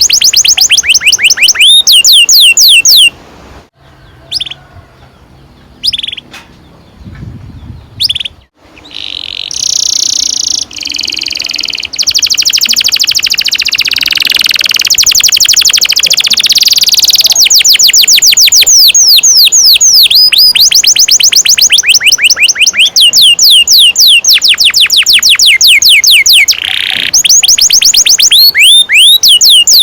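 Domestic canary singing a long song: rapid runs of repeated high whistled notes, each sliding down in pitch. After about three seconds there is a softer, broken-up passage, then a dense buzzing trill or roll, then the fast repeated notes return.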